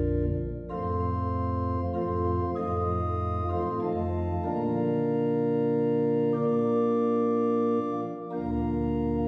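Organ music playing a Christmas carol in long held chords that change about every two seconds.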